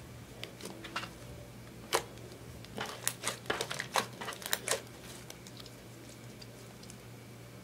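Hands squeezing and kneading sticky clear slime mixed with eyeshadow, making a quick run of sharp wet pops and clicks from about two to five seconds in, then only faint ones.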